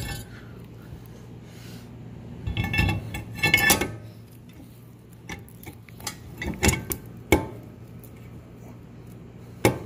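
Brake rotor and hub spacer clinking and knocking against the wheel hub as they are seated by hand: scattered metallic clinks with short ringing, the busiest cluster about three seconds in, then single knocks.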